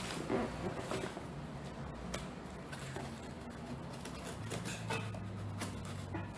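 Scattered clicks, scrapes and rustles of a cardboard shipping box being handled and opened, over a low steady hum.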